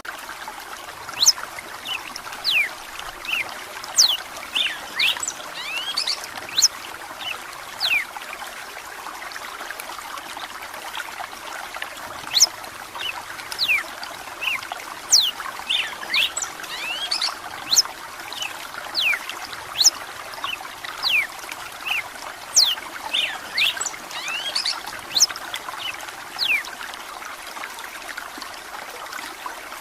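Red-cowled cardinal singing in two bouts of quick whistled notes that slide sharply up and down, with a lull between them, over steady trickling running water.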